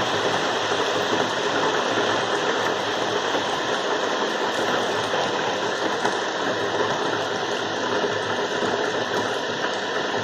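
Steady rain: an even, continuous hiss of many drops with no changes in level.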